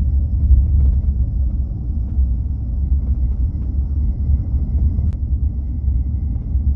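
Steady low road rumble inside a Kia EV6 GT's cabin while driving, with faint taps now and then, the clearest about five seconds in. The taps come from the flaps of the rear cabin-pressure relief vent opening and closing as pressure builds.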